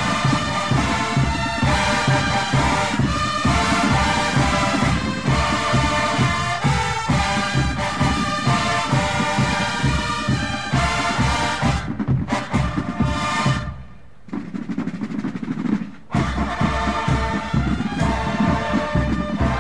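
Drum and bugle corps recording: a brass bugle line playing over marching drums, with a brief quieter passage about fourteen seconds in before the full corps comes back.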